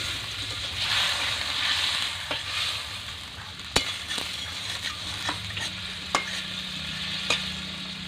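Potatoes sizzling in a spiced oil-and-masala gravy in a steel kadai, with a little water added so they can soften. A metal spatula stirs them and scrapes or taps the pan in several sharp clicks.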